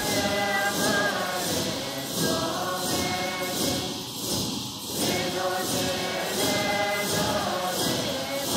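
Background music: choir-like voices singing a slow, chant-like melody over a steady, light percussive beat.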